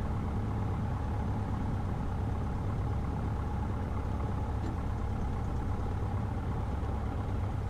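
Cessna 150's four-cylinder Continental O-200 engine idling steadily, a low even drone heard from inside the cabin.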